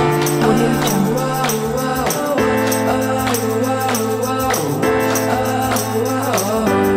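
Background music: an upbeat track with sustained chords over a steady beat of about two hits a second, the chords changing twice.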